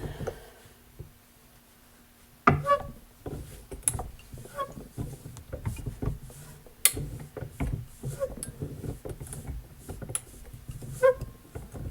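Pipe wrench and its extension pipe being handled on the spindle: a string of sharp metal clanks and knocks, with smaller rattles and scraping in between.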